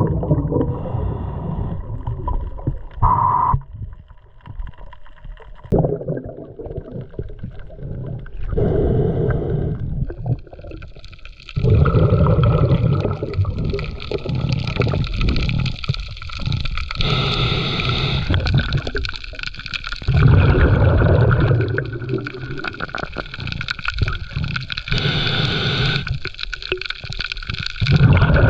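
Muffled underwater sound of moving water, gurgling and bubbling, rising and falling in irregular surges.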